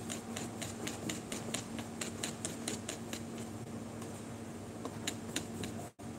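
Light, irregular clicking and tapping a few times a second from gloved hands working in a stainless steel mixing bowl, over a steady low hum from kitchen equipment. The sound cuts out for an instant near the end.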